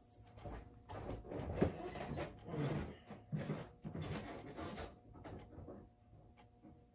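Rubbing and knocking of a person moving close to the microphone, with one sharper knock about a second and a half in. The sounds thin out and fade after about five seconds.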